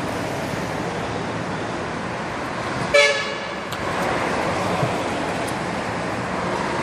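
Steady street traffic noise with one short car horn toot about three seconds in.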